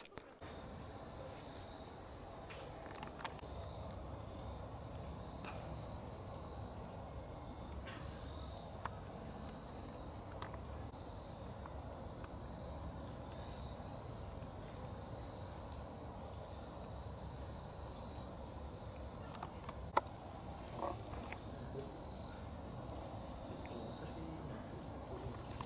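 Faint, steady high-pitched chirring of insects, a cricket-like chorus that pulses evenly without a break. A few faint clicks stand out above it, one about 20 seconds in.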